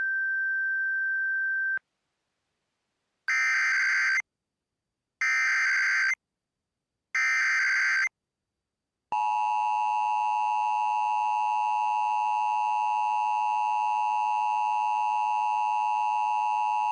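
Emergency Alert System tones. A steady high tone runs until about two seconds in, then come three one-second bursts of the SAME digital header, a warbling data sound. From about nine seconds in the steady two-tone EAS attention signal sounds.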